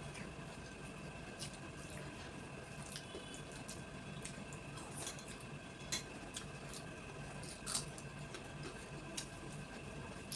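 Quiet, wet chewing and mouth clicks of someone eating rice and dal, a few sharper smacks standing out about six and eight seconds in, over a steady low background hum.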